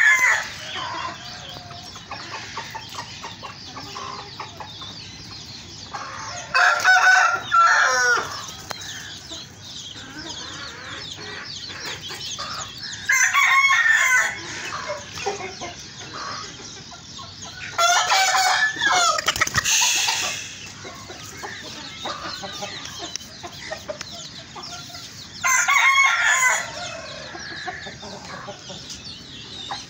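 Backyard chickens: roosters crowing in five loud calls of a second or two each, roughly every six seconds, over steady clucking from the hens.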